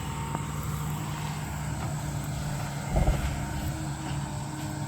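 Volvo demolition machine's diesel engine running steadily with a low hum, and a dull thump about three seconds in.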